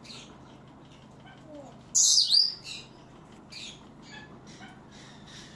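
Parrots calling: one loud, harsh squawk about two seconds in, with shorter, softer chirps and whistles before and after it.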